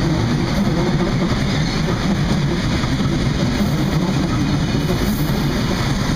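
Loaded coal hopper wagons of a freight train rolling past: a steady rumble of steel wheels on rail.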